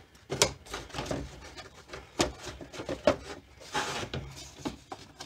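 Plastic air-box lid and air filter frame knocking and scraping as the filter is set into the air cleaner housing of a 2009 Ford Taurus. Scattered sharp clicks and knocks, with a short rustling scrape about four seconds in.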